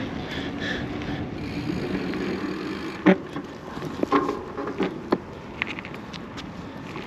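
Steady rushing outdoor noise of wind and road traffic, easing after about three seconds. It is followed by several sharp, irregular knocks over the next few seconds.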